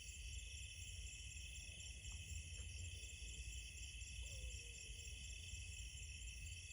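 Night insect chorus of crickets trilling steadily in several high bands over a low rumble, with a faint short call about four seconds in.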